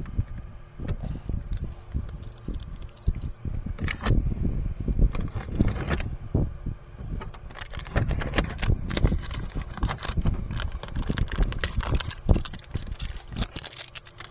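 Hands working at an HVAC air handler, peeling off tape: irregular crackling, scraping and small knocks, with low rumbling handling noise underneath.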